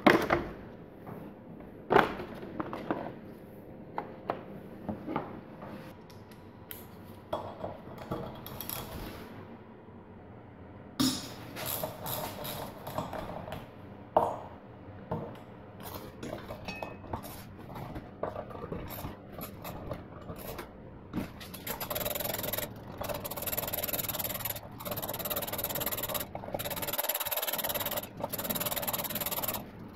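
Sharp clicks of a plastic tool case's latches and metal bits clinking, then a hand tool with a driver bit clicking and scraping as it unscrews the rusty bolts holding a motorcycle brake disc to the wheel. The clicking becomes faster and steadier near the end as the loosened bolts are spun out.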